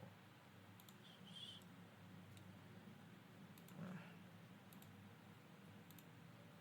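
Faint computer mouse clicks, several in quick pairs, over a low steady hum of near silence.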